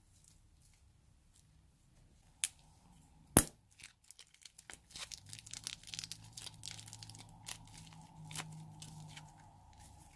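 A sharp snap about three seconds in, then a few seconds of fast crinkling, crackling clicks as hands grip and squeeze a slime-filled rubber balloon.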